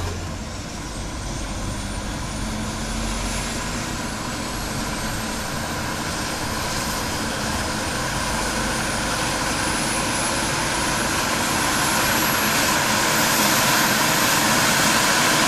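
A long rising whoosh of noise, like a jet engine, used as a transition effect between tracks. It grows slowly louder and brighter, with faint tones gliding upward.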